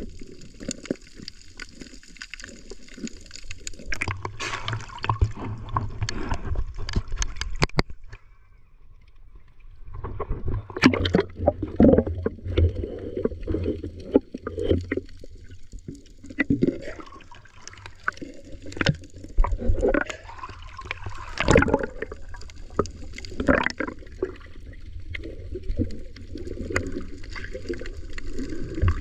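Water gurgling and sloshing, heard muffled with the microphone underwater, with scattered clicks and knocks. It drops quieter for a couple of seconds about eight seconds in, then swells again.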